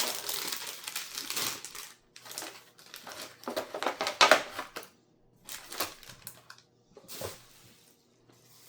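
Packaging crinkling and rustling as the cologne box is handled and opened: a continuous rustle for about two seconds, then four short bursts with pauses between them.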